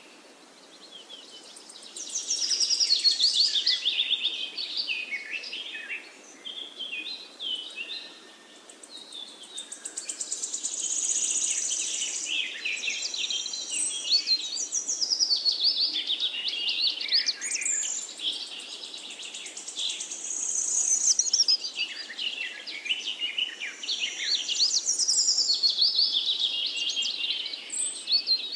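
Birds singing: a busy run of chirps and quick rising and falling whistled notes that swells and fades every few seconds.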